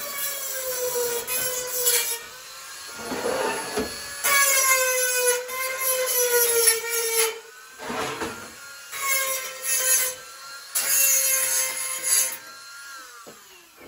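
Small handheld high-speed rotary tool whining as it grinds on a metal stand, in several passes with short breaks, its pitch dipping slightly under load. It spins down near the end.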